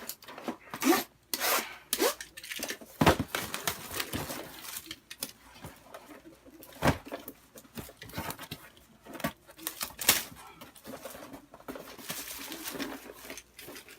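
A cardboard box being worked open by hand: irregular rubbing, scraping and tearing of cardboard and packing tape, with a few sharp knocks about 3, 7 and 10 seconds in. The box is hard to get open.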